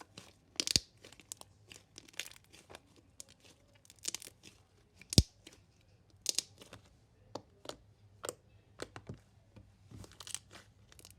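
Sticky homemade slime being kneaded and stretched by hand, giving irregular sharp clicks, pops and tearing crackles, with one loud pop about five seconds in.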